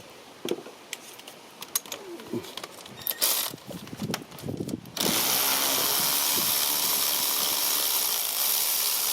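Clicks and knocks as a socket tool is worked onto the spark plug. Then, about five seconds in, a power tool starts and runs steadily for about four seconds, spinning the spark plug out.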